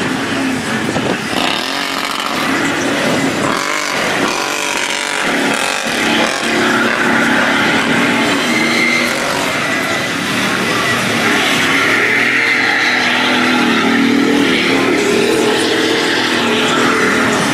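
Chevrolet Silverado pickup engine revving hard while its spinning tires churn through a mud pit. The engine pitch rises and falls with the throttle throughout.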